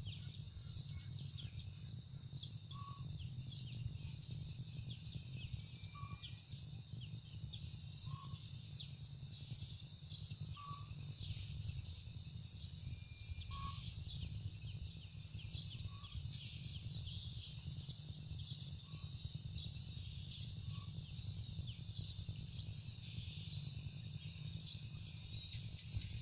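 Sparrows chirping in a dense, continuous chatter over a steady high-pitched whine, with a faint lower call repeating every two to three seconds.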